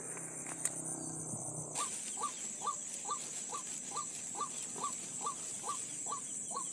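A bird call used as a trapping lure, the same short up-sweeping note repeated at an even pace a little over twice a second, starting about two seconds in. Under it runs a steady high drone of insects.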